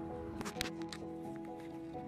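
Background music with long sustained notes, with a few sharp clicks about half a second in.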